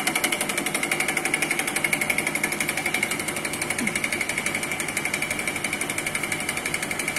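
Laboratory reciprocating plunger pump, belt-driven from an electric motor, running steadily: a fast, even knock from the plunger strokes over a steady high whine.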